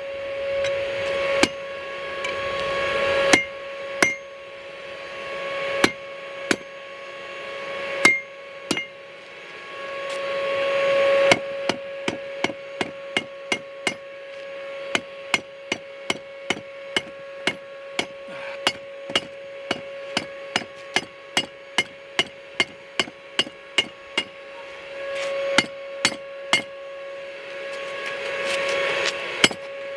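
Hand hammer striking red-hot steel against the horn of an anvil, bending the end of a bar into a curl. A few spaced blows give way to a quick run of strikes, about two a second, roughly a third of the way in, and the blows thin out again near the end.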